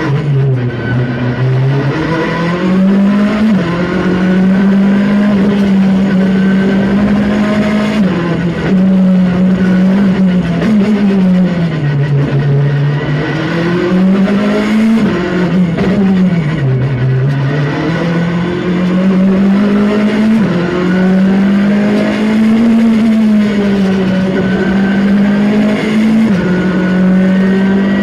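Skoda Fabia R5 rally car's turbocharged 1.6-litre four-cylinder engine, heard from inside the cockpit while driven hard. The pitch climbs under acceleration and drops sharply at each upshift, and it sinks lower a couple of times as the car slows.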